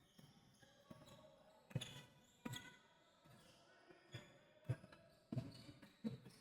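Basketball bouncing on a hardwood court as a player dribbles: about seven separate thuds, fairly faint and irregularly spaced.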